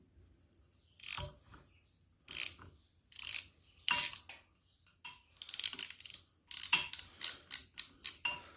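Ratchet driving a Torx (star) bit, clicking as it works a screw loose on a compressor: a few separate clicks, then a quick run of ratcheting clicks from about halfway through.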